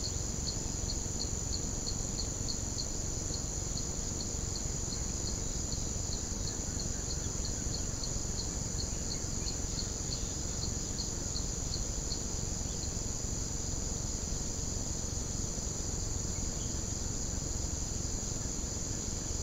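Insects trilling steadily at a high pitch, with a second insect chirping in even pulses about three times a second until about twelve seconds in; a steady low hiss underneath.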